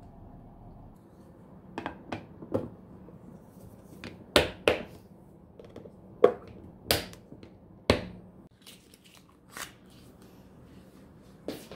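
Plastic snap-lock lid of a glass food-storage container being pressed on and clipped shut: a string of sharp, separate clicks and snaps, the loudest in the middle few seconds.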